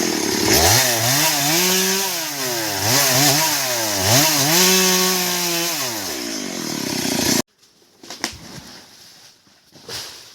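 Stihl MS 382 two-stroke chainsaw running in a cut through a big teak trunk, its engine pitch repeatedly dropping under load and rising again. The saw sound cuts off abruptly about seven seconds in, leaving only faint clicks and knocks.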